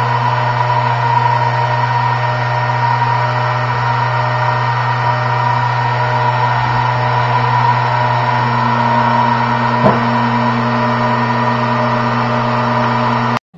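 Electric gyro of a Luftwaffe Fl.22415-1 artificial horizon (Wendehorizont) running on its first power-up: a steady hum with a high whine. There is a small tick about ten seconds in, and the sound cuts off abruptly near the end.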